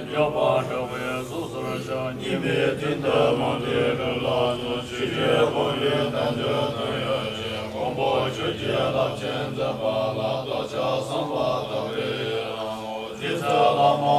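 Tibetan Buddhist monks chanting a mantra together in low, droning voices held steadily, with the pitch shifting every few seconds.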